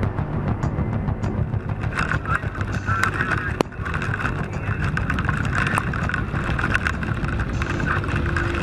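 A motor vehicle's engine runs steadily under a hiss of rain and splashing floodwater, with scattered small ticks and a single sharp click about three and a half seconds in.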